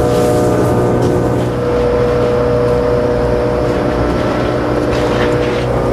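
Steady drone of a research ship's machinery: a low hum made of several steady tones, one of which gets stronger about a second and a half in. A few light clicks come near the end.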